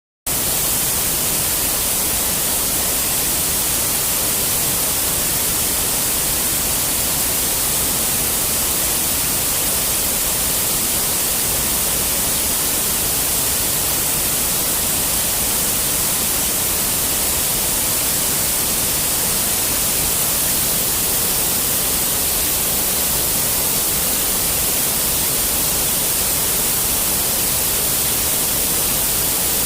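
Waterfall in strong flow: a steady, hissing rush of water that does not change.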